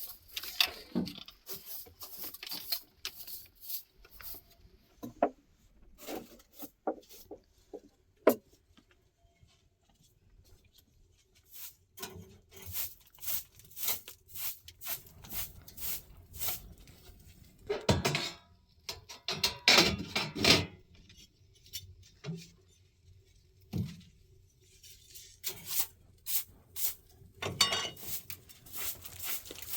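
Irregular knocks, taps and scraping of objects being handled, like pots and utensils, with louder clattering a little past halfway.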